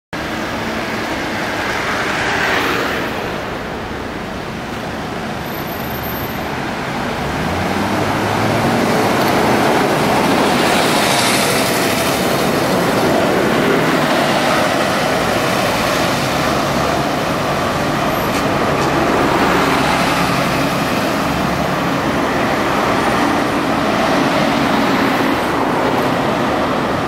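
Diesel engine of a 1987 Isuzu P-LV314N route bus, its 6QA2 engine, running as the bus moves along the street, mixed with the noise of road traffic. The level swells a few times.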